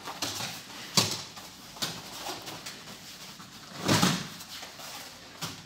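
A few sharp thuds and slaps of aikido throws and breakfalls on foam mats, the loudest and longest about four seconds in.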